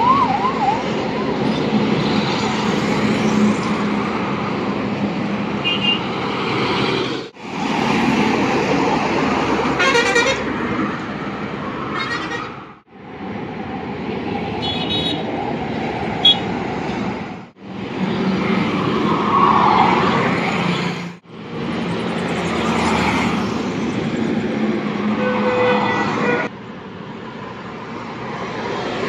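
Highway traffic: heavy trucks and a bus passing close by, with engine and tyre noise and short horn toots several times. The sound cuts off and restarts a few times.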